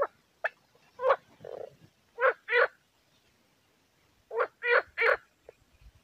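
Frogs croaking: about ten short calls, some in quick pairs, with a pause of about a second midway.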